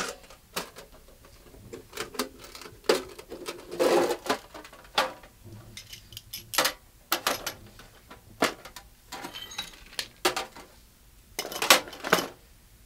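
Rummaging through a pile of things: small hard objects knocking and clinking against each other in a string of irregular sharp clicks, with a few louder clusters of clatter.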